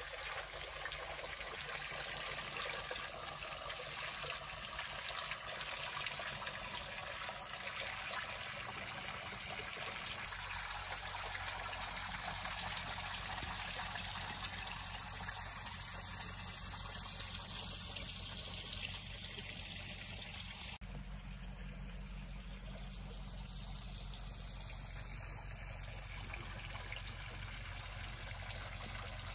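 Spring water trickling and splashing steadily down an icicle-hung rock ledge.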